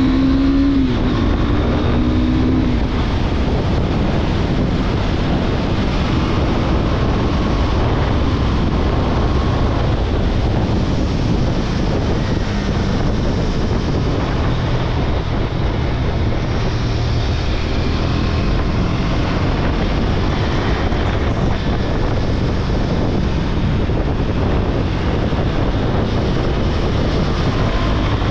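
KTM Duke 390's single-cylinder engine running under way, its note rising briefly at the start, under heavy wind rush on the microphone.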